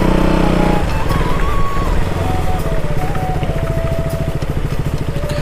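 KTM Duke 200's single-cylinder engine running as the motorcycle rolls slowly in. About a second in its note drops, and it settles into an even, low-revving pulse.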